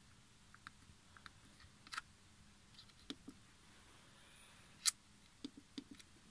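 Scattered soft clicks of the front-panel push buttons on a Marantz CD-75DX CD player being pressed, with the loudest click about five seconds in and a quick run of clicks just after it.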